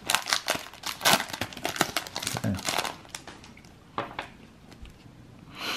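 Foil wrapper of a Panini NBA Hoops trading-card pack crinkling as it is torn open and pulled off the cards. The crinkling is dense for about three seconds, then drops to a few quieter rustles.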